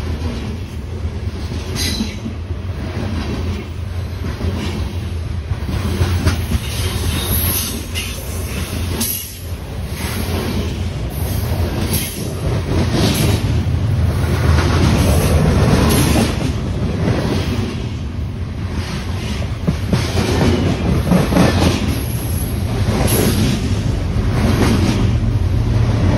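Loaded coal train cars rolling past close by: a steady rumble of steel wheels on rail, with repeated clacks and brief wheel squeals. Near the end a diesel locomotive's low drone builds as it draws alongside.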